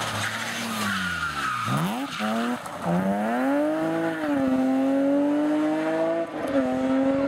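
BMW 3 Series (E46) rally car coming off the throttle with the engine revs falling, then accelerating hard away, the revs climbing and dropping back at about three upshifts. Tyres skidding on the loose road edge as it slides through the corner.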